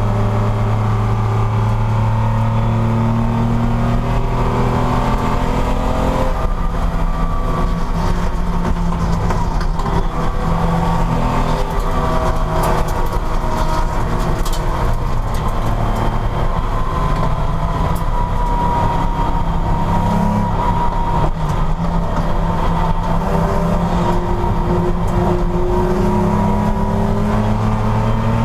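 Porsche race car engine running hard at racing speed, its pitch climbing and falling as it accelerates and brakes, with a sudden drop about six seconds in that sounds like a gear change.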